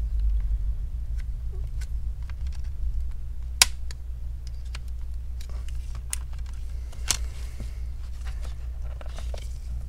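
Scattered light clicks and taps of a thin pry tool and gloved hands working around a laptop's motherboard and heatsink, with two sharper clicks about three and a half and seven seconds in, over a steady low hum.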